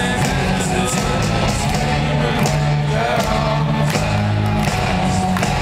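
Rock band playing live: drums and cymbals hitting steadily under sustained bass notes, with a voice singing over them.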